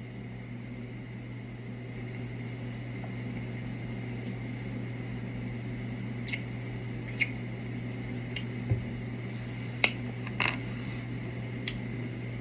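A person sipping and swallowing soda: a few short, soft mouth clicks in the second half over a steady low hum.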